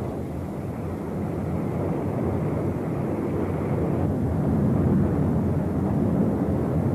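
Volcanic rift eruption: a low, steady rumbling noise that slowly grows louder.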